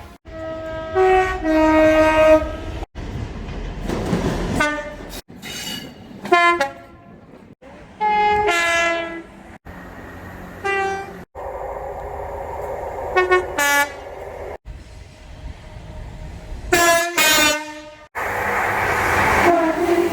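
A rapid series of different train horns, one clip after another with abrupt cuts about every two or three seconds. Each horn sounds a chord of notes in short blasts, some stepping between pitches, with the rumble of passing trains under some of them.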